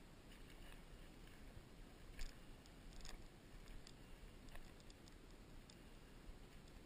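Near silence in the open, with a few faint, irregularly spaced ticks and crackles, the clearest about two and three seconds in.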